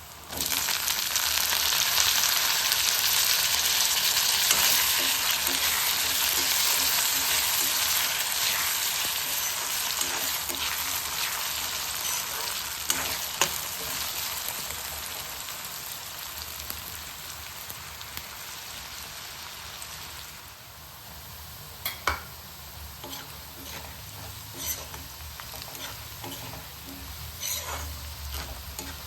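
Food frying in hot oil in a pan. A loud sizzle starts suddenly as the food goes in and slowly dies down over about twenty seconds. In the quieter later part, a few sharp clicks and scrapes come from the spatula as the pan is stirred.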